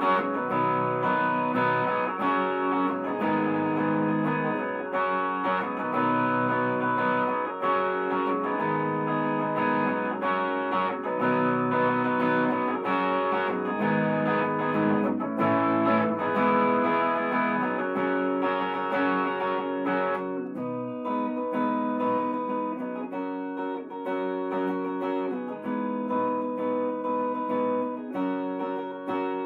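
Gibson Les Paul electric guitar played solo, picked chords and melody notes. About two-thirds of the way through, the playing thins out to lighter, sparser picked notes.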